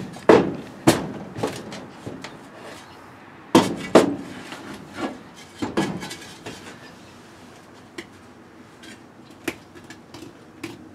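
Shovel digging into soil: a run of scraping, chunking strikes of the blade, several close together in the first six seconds and fewer after.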